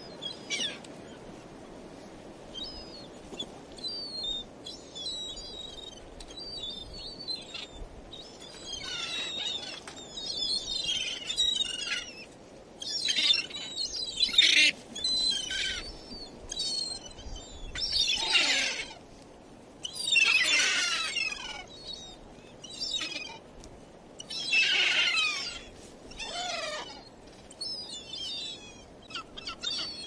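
Several gulls calling, their calls overlapping in bursts every few seconds, many of the calls falling in pitch. The bursts are loudest through the middle of the stretch, over a steady low background noise.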